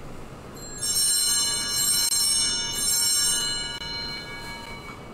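A set of brass altar bells is shaken twice at the elevation during the consecration. A cluster of high ringing tones dies away over the last second or so.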